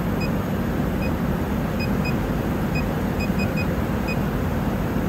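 Touchscreen control-panel key beeps: about nine short, identical high beeps at uneven intervals as digits are keyed in. Under them runs a steady machine hum.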